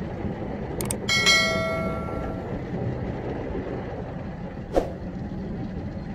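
Automatic car wash running, heard from inside the car: a steady rumble of water spray and the side brushes working on the body. About a second in, a click and a bell-like chime from a subscribe-button sound effect ring out and fade; another short click comes near five seconds.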